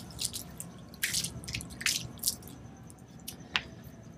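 Water from a plastic jug dripping and splashing onto a concrete patio, heard as a handful of short, separate splats.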